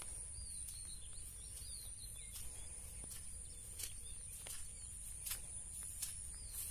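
Outdoor rural ambience: birds chirping in a short run of quick calls during the first couple of seconds, over a steady high insect drone. Faint ticks come about every second.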